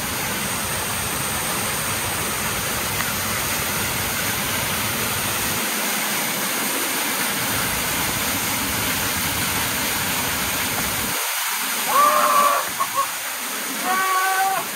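Waterfall in heavy flood flow, a steady rushing roar of falling water. Near the end a person's voice calls out briefly, twice.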